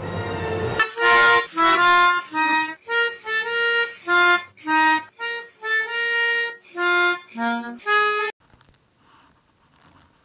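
Orchestral film music cutting off under a second in, then a short harmonica tune of about fifteen detached notes and chords that stops abruptly about eight seconds in, leaving only faint room sound.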